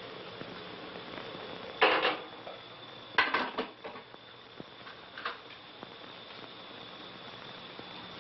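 Dishes and cutlery clinking and clattering in three short bouts, the loudest about two and three and a half seconds in.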